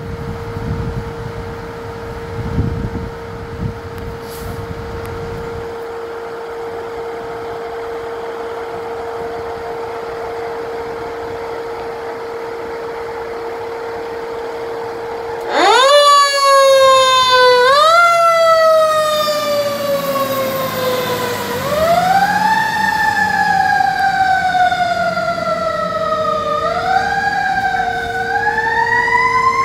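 Fire engine's electronic siren switching on about halfway through with a sudden rise, then sounding a wail that climbs quickly and falls slowly, over and over. Before it, only a steady hum-like tone and a low rumble, and the hum carries on under the siren.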